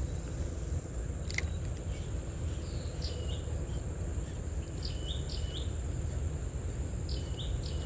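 Outdoor ambience of insects and birds: a steady high-pitched insect drone, with a bird repeating a short stepped call of a few notes about every two seconds, over a low steady rumble.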